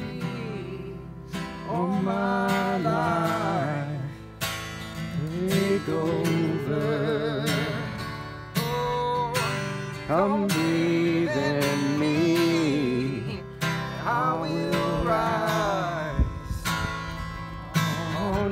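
A man singing a slow Christian worship song with long, wavering held notes, accompanying himself on a strummed acoustic guitar.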